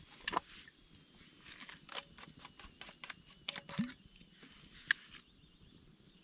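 Wood campfire crackling, with irregular sharp pops and snaps, the loudest near the start and about five seconds in.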